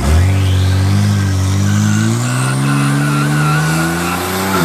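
BMW M3's twin-turbo straight-six held at high revs with the rear tyres spinning in a burnout. The pitch creeps slowly upward, then drops off sharply near the end as the driver lifts.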